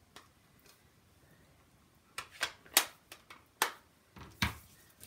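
About five short, sharp clicks and taps from craft supplies being picked up and set down on a tabletop, starting about two seconds in.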